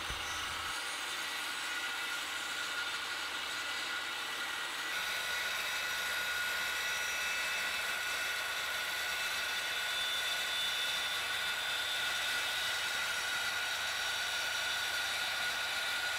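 Handheld circular saw running steadily through a sheet of MDF, a constant motor whine over the noise of the cut that fills out a little about five seconds in.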